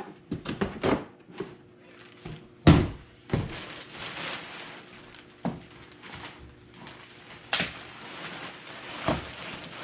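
Cardboard box being handled and set down with one loud thunk, followed by a plastic bag rustling and a few single knocks as things are moved about.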